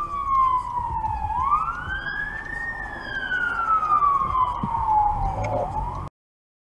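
Emergency vehicle siren wailing: its pitch slides slowly down, swoops back up, then slides slowly down again, over low road noise. It cuts off abruptly about six seconds in.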